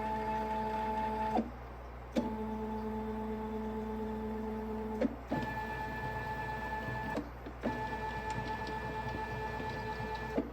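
Stepper motors driving machine axes in a series of moves: a steady multi-pitched whine that cuts off about a second and a half in, then three more runs of two to three seconds each, every one starting with a click, the last two with an extra higher tone.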